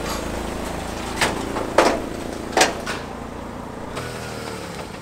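Steady low hum of a car running, with three sharp knocks between about one and three seconds in.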